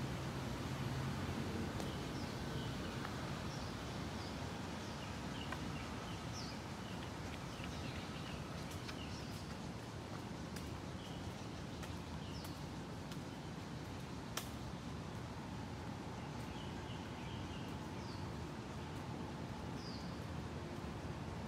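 Birds chirping in short, scattered calls over a steady low background noise, with one sharp click about fourteen seconds in.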